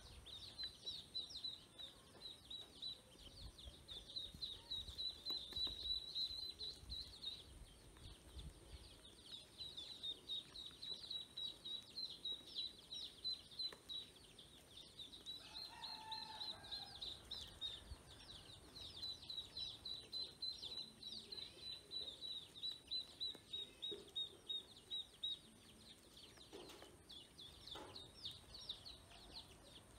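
A group of ducklings peeping continuously: many short, high-pitched peeps in quick succession, overlapping.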